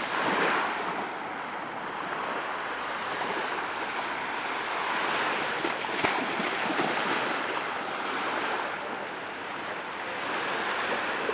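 Small waves washing onto a sandy beach: a steady surf hiss that swells and eases.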